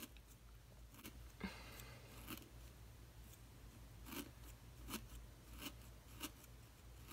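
Felting needle tool stabbing a wool bead down into a rice-filled burlap felting pad, making faint, short scratchy crunches. A few come scattered in the first half, then a steady jab roughly every 0.7 s.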